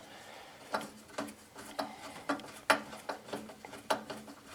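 A hand tool clicking and tapping against the carburetor mounting hardware of an old Craftsman snowblower as the mounting screws are loosened: a series of sharp, irregular clicks, about two a second.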